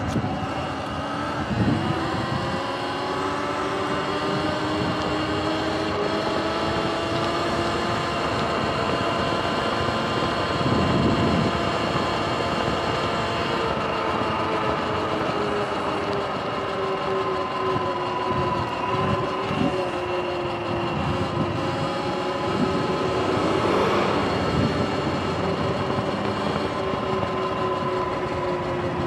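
Sur-Ron electric dirt bike's motor and drive whining while riding, the pitch rising over the first couple of seconds and then holding fairly steady with small rises and falls, over a steady rushing noise.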